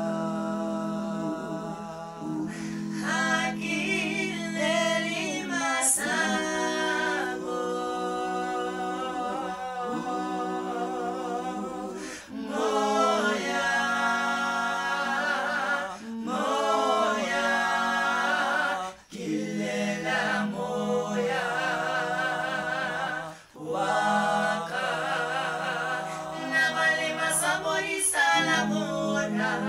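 A cappella singing by one man's voice layered into four-part harmony. A low part holds long steady notes under the moving upper voices, with short breaks between phrases.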